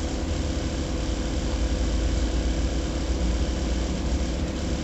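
Steady low background hum, unchanging throughout, with a faint steady higher tone above it.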